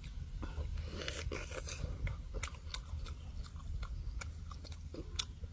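Crunching bites and chewing of crispy fried chicken, in irregular crisp crackles.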